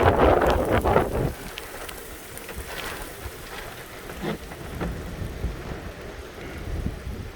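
Storm wind buffeting the microphone for about the first second, then dropping to a steady patter of heavy rain with scattered louder drop hits.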